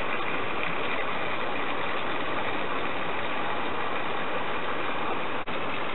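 Water jet from an 18 mm nozzle on a supply pipe, spraying hard against a test bucket on a pivot arm: a steady rushing noise that drops out for an instant about five and a half seconds in.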